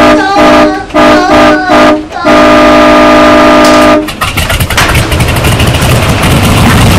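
A vehicle horn honks three short times and then once long, for about a second and a half, with a steady multi-note tone. It stops about four seconds in, and an engine starts running with a low hum and a fast, regular rattle.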